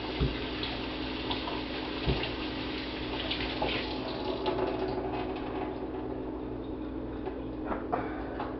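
Kitchen tap running while hands are washed under it, a steady rush of water with a few light knocks.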